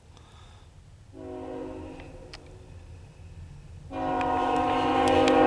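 Freight locomotive's air horn sounding for a grade crossing: a first blast about a second in that fades away, then a much louder long blast starting near the end as the train draws closer.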